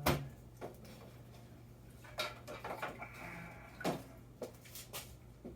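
Whetstones being handled and set in place: a string of irregular knocks and clacks, the loudest just at the start and a cluster near the end, over a steady low hum.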